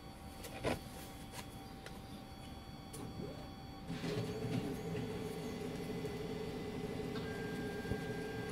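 A few faint clicks, then about four seconds in a printer starts up and runs steadily as it prints, a steady hum with a higher tone joining near the end.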